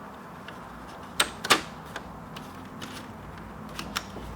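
Plastic top case of a WASD V1 keyboard being fitted onto the bottom case: light scattered clicks and knocks, with two sharp clicks close together a little over a second in as the front snaps into place.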